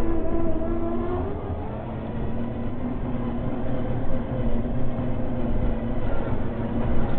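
Radio-controlled scale tow truck's electric motor and gearbox whining as it crawls up a dirt track, with bumps and rattles from the towed model and its dolly. The whine dips in pitch about a second in, then holds steady.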